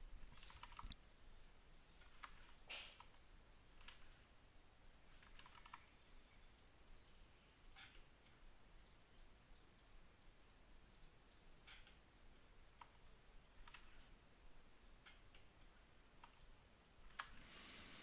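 Faint, irregular clicks of a computer mouse and keyboard, spaced a second or a few seconds apart, over quiet room tone.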